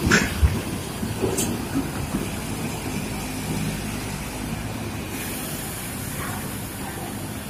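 A large bus engine runs with a steady low drone. There is a short thump about half a second in, and a higher hiss joins in from about five seconds in.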